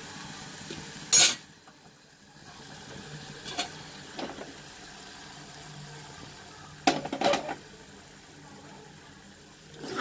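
A gas stove is switched off with a sharp click about a second in, after which the steady background hiss drops. A steel ladle then knocks and scrapes against an aluminium pressure-cooker pan of thick jam, with a cluster of clanks around seven seconds in.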